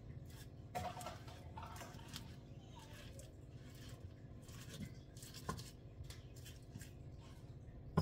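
Pestle mashing banana in a mortar for nilupak: irregular soft knocks and scraping strokes, with a couple of sharper knocks about a second in and past the middle.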